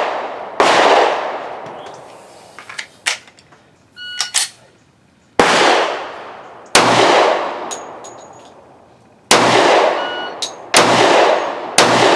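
Six shots from a Smith & Wesson M&P 10mm pistol firing 170-grain rounds, each followed by a long echoing tail. The first shot stands alone, then a gap of several seconds, then five more shots at irregular spacing. Light metallic clinks come between shots. The pistol feeds and cycles this ammunition without a malfunction.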